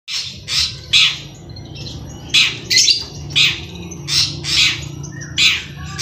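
Long-tailed shrike (cendet) giving a rapid series of harsh, rasping calls, about two a second with a short pause, provoked by rival shrikes caged beside it.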